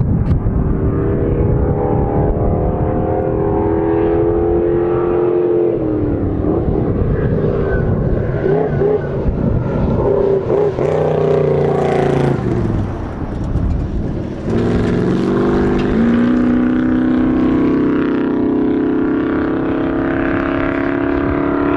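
Chevy Pro Truck race truck's engine running hard under acceleration, its pitch climbing and dropping several times with gear changes and throttle lifts, loudest about midway as it passes close.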